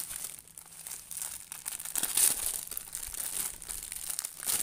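Clear plastic packaging crinkling and crackling irregularly as it is pulled open by hand to unwrap a phone flip case, loudest about two seconds in and again near the end.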